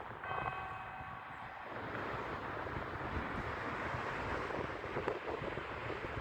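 Church bells' last ring dying away, its steady overlapping tones fading out about a second and a half in, leaving only steady outdoor background noise.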